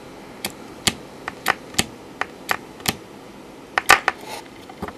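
Small toggle switch flipped by hand over and over, about a dozen sharp clicks at two to three a second, with a louder double click near the end. Each flip is one manual clock pulse single-stepping a Z80 CPU.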